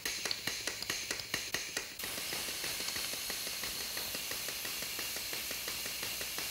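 Air-operated sealant pump of a Nordstrom 400D Hypregun running, its pump mechanism clicking about five times a second. About two seconds in, a steady hiss of escaping air starts under the clicking as the system is purged of trapped air.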